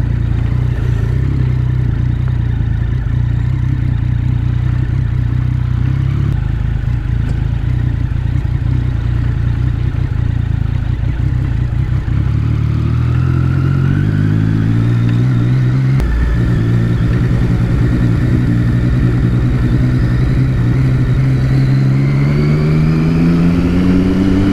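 Triumph Street Triple 675's three-cylinder engine with an Arrow aftermarket exhaust, heard from the saddle: it runs at a steady low engine speed for the first half, then the revs climb, drop sharply once about two-thirds of the way through as it shifts up, and climb again to the end.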